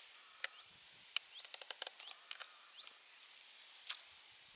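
Faint open-air ambience with small birds giving short, high, rising chirps now and then, and a few sharp clicks, the loudest one near the end.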